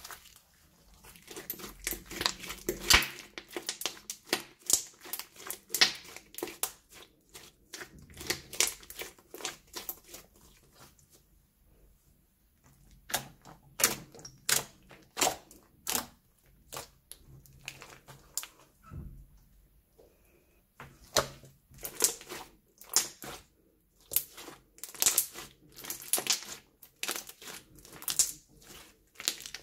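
Slime being squeezed and worked in plastic piping bags: irregular sticky clicks, crackles and plastic crinkles in spurts, with two short pauses.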